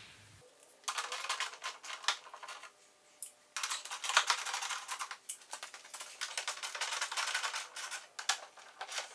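Hand socket ratchet clicking rapidly in runs as it loosens the 10 mm bumper mounting nuts behind the bumper wings. The clicking starts about a second in, pauses briefly near three seconds, then carries on.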